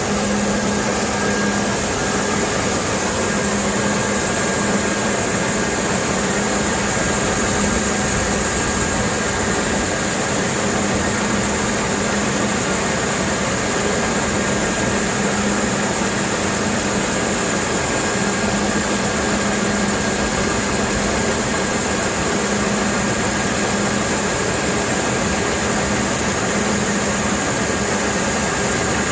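Engine-driven pump running steadily, with a constant hiss of high-pressure mud and water.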